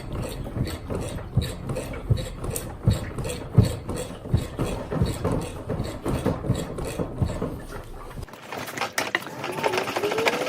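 Repeated metal knocks and clicks from hand tools working on a scooter's seized rear wheel, about three to four a second. About eight seconds in, the sound cuts abruptly to a higher, busier clatter with rising and falling tones.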